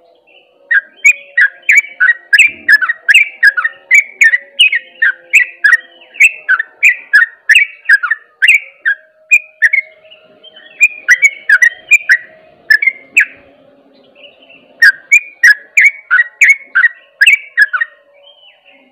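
Yellow-vented bulbul (trucuk) singing its 'ropel' song: fast runs of short, sharp chirping notes, about three a second, in three bursts with short pauses between them.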